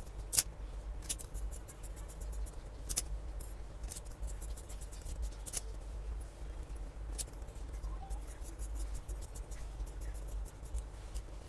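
Large tailoring scissors cutting through four layers of folded black lining fabric, with a string of short, irregularly spaced crisp snips.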